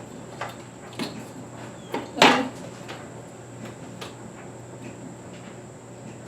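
Light clicks and one louder knock about two seconds in: a ceiling fan's motor housing being settled onto its ball-mount hanger bracket.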